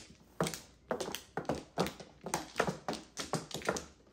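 Mahjong tiles clacking: a quick, irregular run of sharp clicks, roughly three a second, as tiles are handled, drawn and set down on the table.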